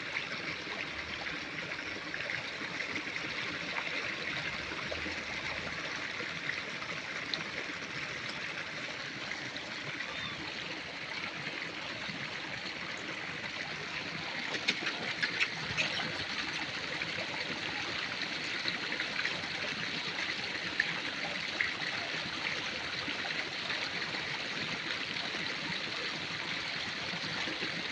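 Steady running water, with a few faint clicks about halfway through.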